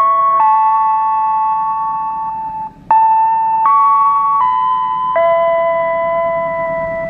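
Background music: a slow keyboard melody of long held notes that step from one pitch to the next, with a brief gap about two and a half seconds in.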